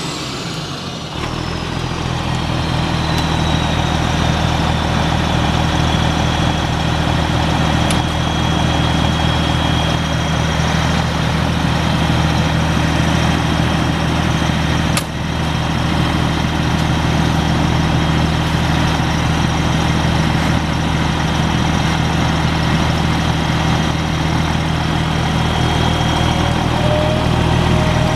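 Cummins M11 10.8-litre inline-six turbo diesel of a 1997 International 1840 mixer truck idling steadily, with a high whine falling in pitch over the first few seconds as the revs settle. A single sharp click sounds about halfway through.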